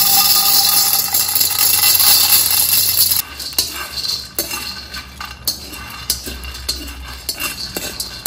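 Dried soybeans poured from a glass jar into a dry metal wok, a continuous loud rattle; about three seconds in it changes abruptly to the beans being stirred and scraped around the wok with a metal slotted spoon as they dry-roast, a run of clattering clicks and scrapes.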